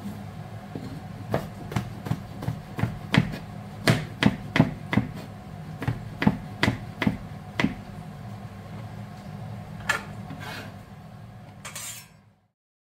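A kitchen utensil knocking sharply on a hard surface, about fifteen irregular strokes at two to three a second, with one more a little later, over a steady low hum. The sound cuts off to silence near the end.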